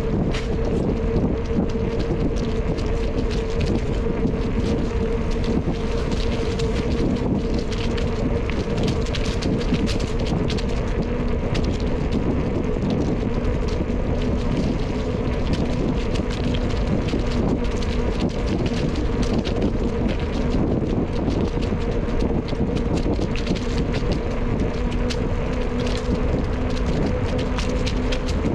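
Wind rushing over the microphone of a camera on a moving bicycle. Underneath it are scattered small ticks and rattles from the bike rolling along, and a steady low hum.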